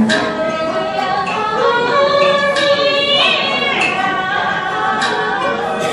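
Yue opera aria sung by a woman over Chinese instrumental accompaniment: long held notes, with a sweeping vocal glide about three seconds in.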